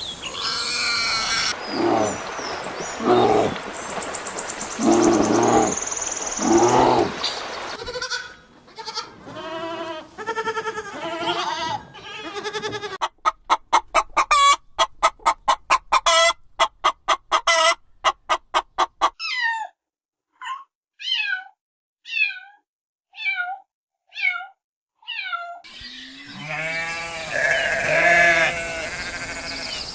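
A sequence of different animal calls cut one after another. It opens with drawn-out pitched calls, then a fast series of short repeated calls about three a second, then short high calls sweeping downward about once a second with silence between them, then more pitched calls near the end.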